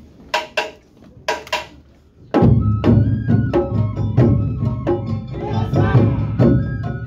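Awa odori festival band starting a number: four sharp strikes in two quick pairs count it in, then about two and a half seconds in the drums, gong and flute come in together, playing a loud, steady, beating rhythm.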